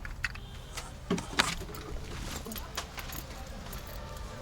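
Light clicks and clinks of small hard parts being handled, with two louder knocks a little after a second in.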